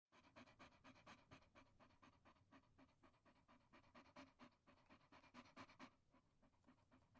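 Dog panting in quick, even breaths, about four a second, growing softer near the end.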